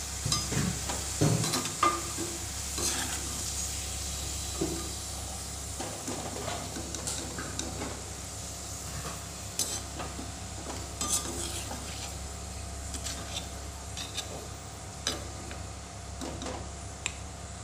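Onion slices deep-frying to a crisp red-brown in hot oil in a karahi, sizzling steadily, while a perforated metal skimmer scrapes and clicks against the pan, lifting the fried onions out.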